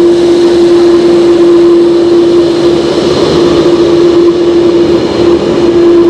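Airbus A330-200's GE CF6 jet engines running at taxi power close by: a loud, steady single-pitched tone over a rushing noise, holding level throughout.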